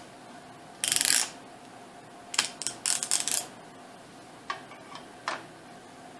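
Torque wrench and armorer's wrench working an AR-15 barrel nut: short bursts of ratchet clicking about a second in and again between two and three and a half seconds in, then two single light metal clicks.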